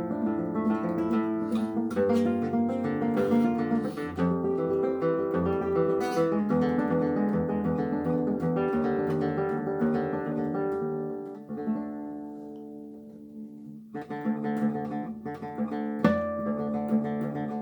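Acoustic guitar playing a slow melodic piece of plucked notes and chords. About two-thirds through, a phrase dies away to a soft ringing note, and the playing starts again a couple of seconds later.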